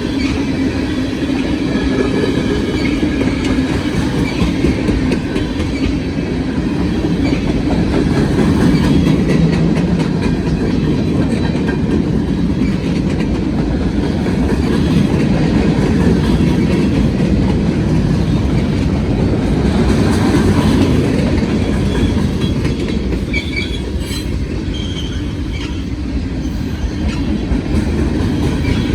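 Long freight train rolling steadily past, its cars' wheels clattering over the rail joints with a continuous rumble.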